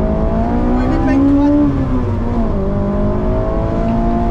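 Honda S2000's four-cylinder engine heard from inside the cabin, pulling under load on a winding climb. Its pitch rises, drops about two seconds in, then climbs steadily again.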